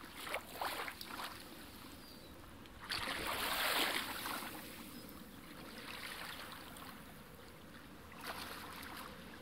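Soft sea waves washing in slow swells, the biggest about three seconds in.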